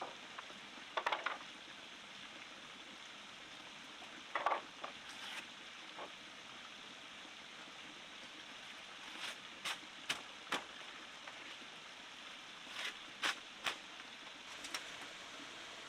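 Steady rushing hiss of a forest stream, with about ten short knocks and clicks scattered through it, several in quick succession about nine to eleven seconds in and again near the end.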